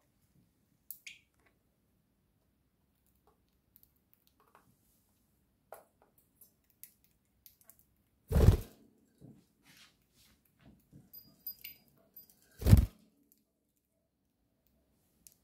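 Two loud dull thumps, the first a little past halfway and the second about four seconds later, among faint scattered clicks and taps.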